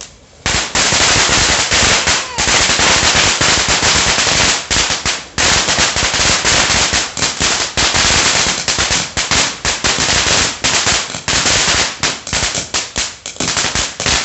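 Phoenix Fireworks Lucky Taal Volcano crackling cone fountain burning: a loud, steady hiss of spraying sparks shot through with dense rapid crackling pops. It starts about half a second in and stops abruptly near the end.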